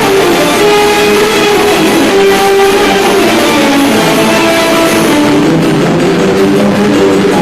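Loud music, with many instruments sounding together.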